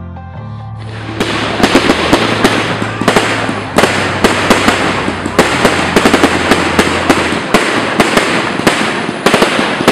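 Fireworks display: from about a second in, a dense, continuous stream of sharp pops and bangs from bursting aerial shells and crackling effects, with louder reports every half second or so.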